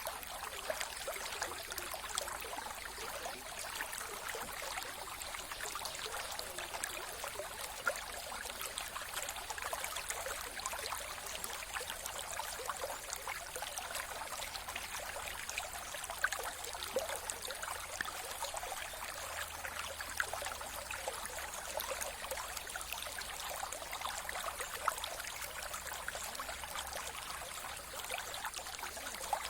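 Mountain river flowing steadily, its water babbling and trickling with a constant splashing hiss.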